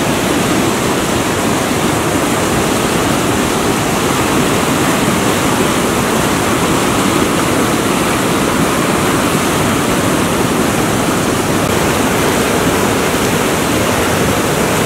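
White-water river rapids rushing over rocks: a loud, steady wash of water noise.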